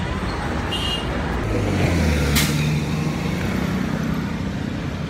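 Steady road traffic noise, with a vehicle engine humming louder for a second or two about two seconds in, and one sharp click near the middle.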